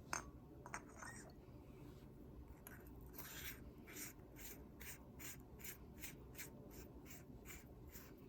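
A couple of small clicks, then the threaded top of an Olight Warrior 3 tactical flashlight being screwed back on by hand: a regular run of short, scratchy rasps, about two or three a second.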